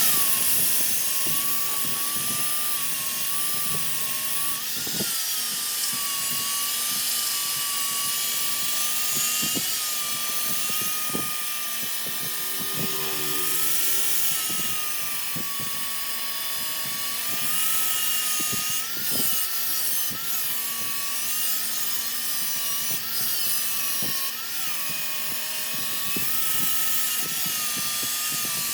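Wood lathe running, its motor giving a steady whine that wavers slightly in pitch, while a turning tool cuts the spinning wood with a continuous hissing scrape and scattered light knocks.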